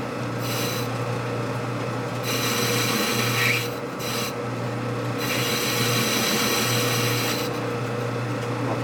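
A shop machine tool running with a steady motor hum. A high rasping cutting noise comes and goes in three passes of one to two seconds each as a metal part is machined down about 75 thousandths.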